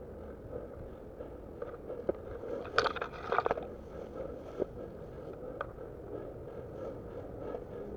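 Footsteps crunching and brushing through long grass on a steep slope, with scattered sharp scrapes and a louder rustle about three seconds in, over a steady low background.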